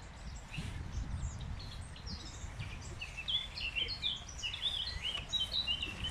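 Small songbirds singing in the trees: runs of short, quick, high chirping notes from several birds, busier in the second half, over a low steady rumble.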